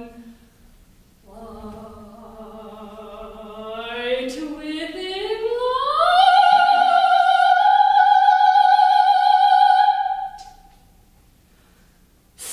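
Solo soprano singing unaccompanied in operatic style: a low held note that slides slowly upward into a long, loud high note, held for about four seconds and then fading away.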